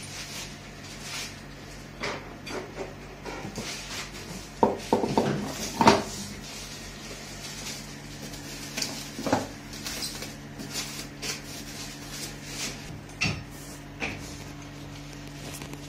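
Knocks and clatter of hard plastic parts being handled as a toy ride-on bike's plastic rear wheel is fitted onto its metal axle, with a cluster of louder knocks about five seconds in, over a faint steady hum.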